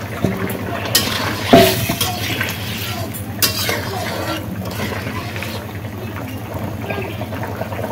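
A metal slotted spoon stirring freshly added fried chhana pieces into a curry in a large black wok, clinking and scraping against the pan a few times, loudest about one and a half seconds in, over a steady hiss from the cooking pot.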